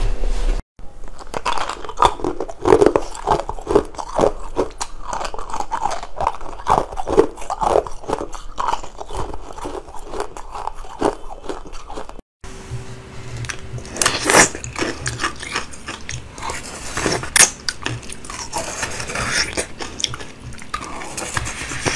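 Close-miked crunching and chewing of frozen coloured ice, bite after bite, with sharp crackling snaps. The sound breaks off abruptly twice, at about a second in and about halfway, where one eating clip cuts to the next.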